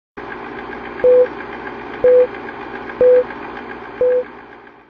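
Intro sound effect: four short beeps, one a second, over a steady whirring with a fast ticking, in the manner of an old film-leader countdown.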